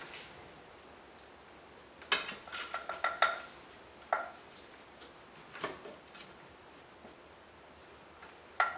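Kitchenware clinking and knocking as grated coconut is handled and loaded into a juicer: a cluster of light clinks about two seconds in, then a few single knocks spaced well apart.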